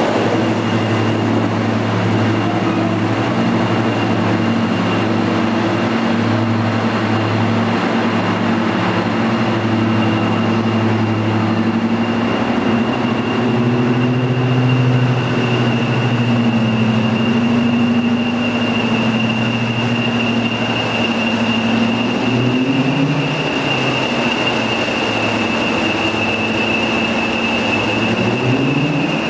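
Two diesel locomotives running slowly past at low speed: a Class 55 Deltic, powered by Napier Deltic two-stroke opposed-piston engines, leading a Class 40. Their engines give a loud, steady low note, with a steady high whistle above it. The engine note shifts late on and rises near the end.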